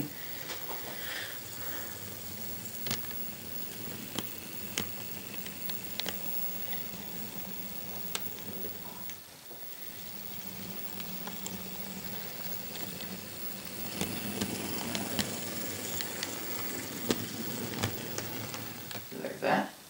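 ScaleTrains ES44AC model locomotive running slowly on model railroad track: a steady low hum from its motor and drive under a rattly, sizzling wheel-and-rail noise, with scattered sharp clicks. The sound dips briefly just before the middle and grows louder near the end.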